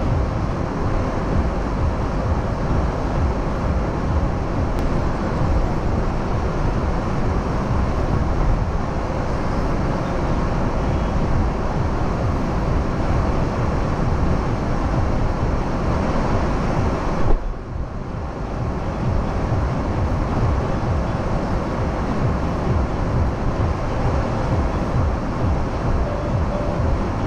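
Steady busy-street traffic noise from passing cars and motorbikes, a continuous low rumble with no distinct events, dipping briefly about two-thirds of the way through.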